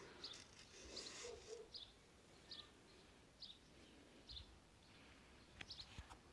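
Faint small-bird chirps, short and high, repeating roughly once a second. Near the start there is a brief rustle of cracked corn being stirred by hand.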